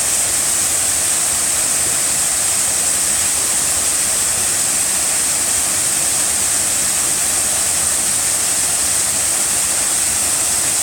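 Waterfall: a steady, loud rush of falling water close by.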